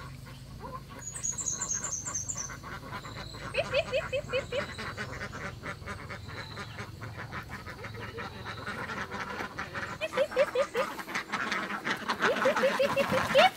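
Domestic white ducks quacking in short runs of rapid calls, several times, louder near the end.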